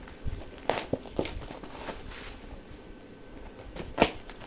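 Handling noise from a trading-card box being opened: scattered crinkles and light clicks, with one sharper knock about four seconds in.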